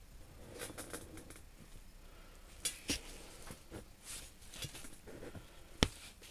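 Faint scattered clicks and light metallic taps, the loudest a single sharp click near the end.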